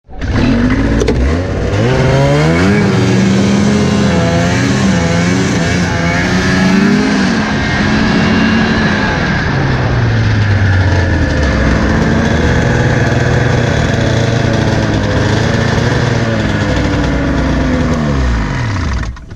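Snowmobile engine running under way, its pitch climbing and falling as the throttle is opened and eased off, then dropping near the end as the sled slows to a stop.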